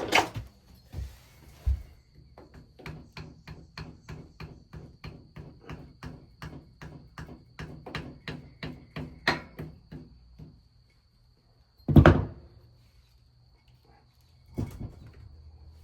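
Light, even taps, about four a second for some eight seconds, as the flywheel-end crankshaft oil seal is tapped into the engine case, then one loud thunk a couple of seconds later.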